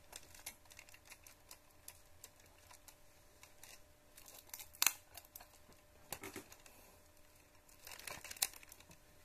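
Plastic LEGO Technic blaster being handled and worked by hand: scattered light clicks and rattles of plastic parts, one sharper click about five seconds in and a quick run of clicks near the end.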